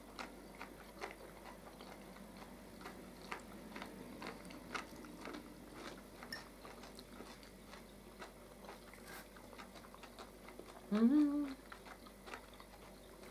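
Quiet table eating: scattered small clicks of a fork and knife against a plate and soft chewing, with one short hummed 'mm' about eleven seconds in.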